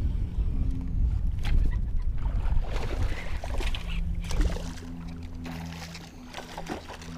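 A hooked bass jumping and thrashing at the water's surface, a burst of splashing about halfway through, over a low rumble that eases off soon after. A few sharp ticks follow near the end.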